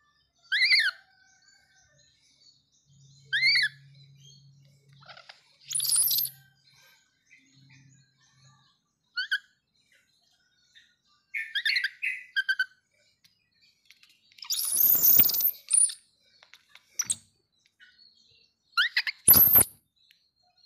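Baby macaque giving short, high-pitched squeaky calls, about seven of them spread out, with a longer, shriller squeal about 15 seconds in.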